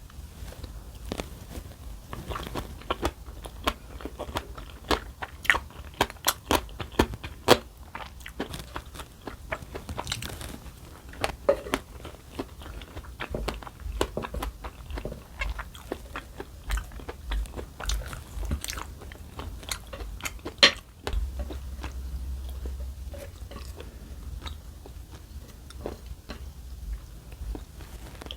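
Close-miked eating: a person biting and chewing food, with irregular crisp crunches and wet mouth clicks, a few of them sharply louder.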